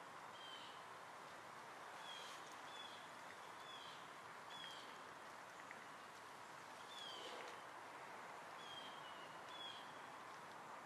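Faint outdoor background hiss with a bird repeating short, high chirps that each slide down in pitch, one every second or so with a few gaps.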